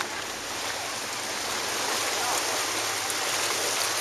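Steady rushing of sea water washing against shoreline rocks below a seawall, growing a little louder about halfway through.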